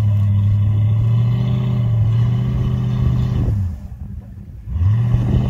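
Pickup truck engine held at steady high revs while the stuck truck tries to drive out of deep snow on a tow strap. The revs drop about three and a half seconds in and climb back up to the same steady pitch a second later.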